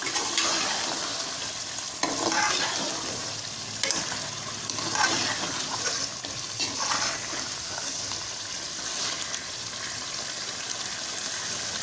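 Chicken curry sizzling in a metal pot while a slotted metal spatula stirs it, scraping against the pot in irregular strokes every second or two over a steady frying hiss.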